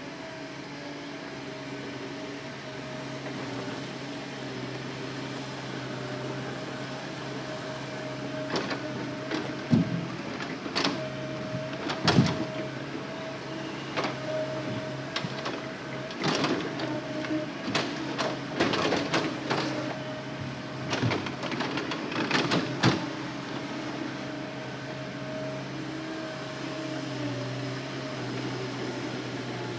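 Hitachi Zaxis excavator's diesel engine running steadily with a fixed hum. From about eight seconds in, a run of irregular knocks and clunks, loudest around ten and twelve seconds, as logs are grabbed and knocked together during loading.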